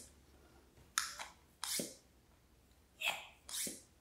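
Plastic hand pump of a pump-up Nerf air-tank blaster worked through two strokes, giving four short hisses of air in two pairs. It is the air-leak sound of the pump, which the owner puts down to air escaping past the seal through the pump head's overpressure relief valve.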